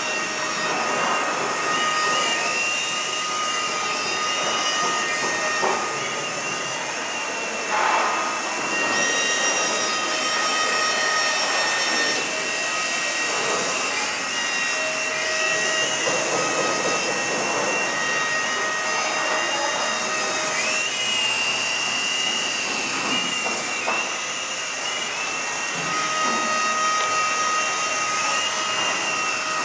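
Small RC toy helicopter's electric motor and rotor blades whining steadily as it hovers and manoeuvres, the pitch of the whine wavering up and down.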